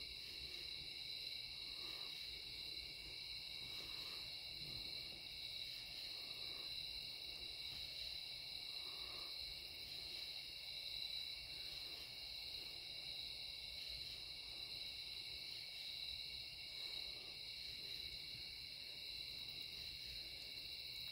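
Steady night insect chorus: several high, continuous, shrill tones layered together without a break.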